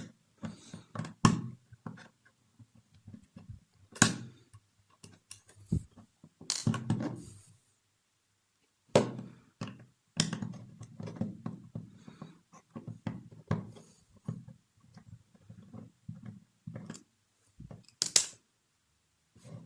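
Irregular small clicks, taps and knocks from a screwdriver undoing the hard drive's mounting screws and from the screws and laptop being handled on a table, with a short quiet pause midway.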